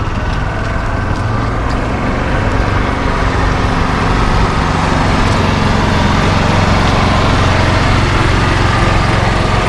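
A vehicle engine running steadily, a little louder from about halfway through.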